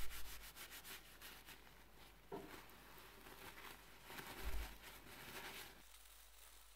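Faint rustling and crinkling of a paper towel wet with WD-40 as it is rubbed around a handful of steel ball bearings to clean off the old grease.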